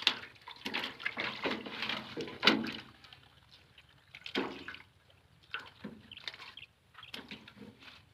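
Water splashing and sloshing in irregular short bursts, the loudest about two and a half seconds in.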